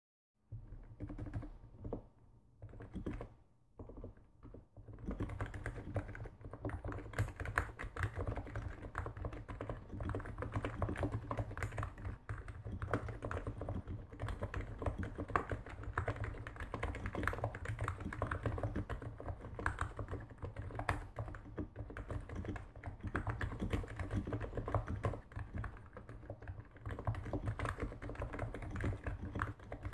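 NIZ 87EC keyboard with 35g electro-capacitive (Topre-type) rubber-dome switches being typed on: a few separate keystrokes at first, then steady fast typing from about five seconds in.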